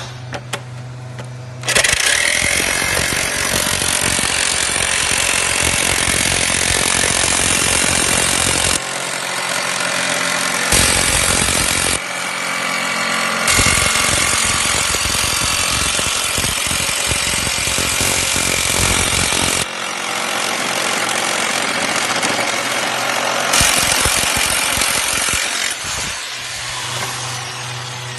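Bosch jigsaw running, then sawing through a thin sheet from about two seconds in: a loud, harsh, continuous blade noise whose tone shifts several times as the cut goes on.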